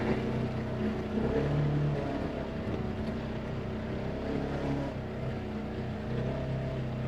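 Polaris Ranger XP side-by-side's engine running steadily as the buggy drives along.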